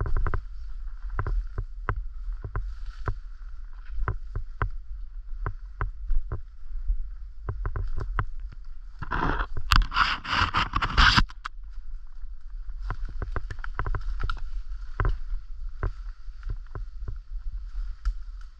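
Footsteps and twigs crackling underfoot while walking through a leafy thicket, with a steady low rumble. About nine seconds in, a louder two-second stretch of brush rustling and scraping against the body as it is pushed through.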